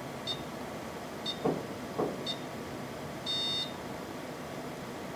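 Diagnosys color dome ERG stimulator chiming three short high beeps about a second apart, then one longer beep: the signal that a flash is coming. Two brief low sounds fall between the later beeps.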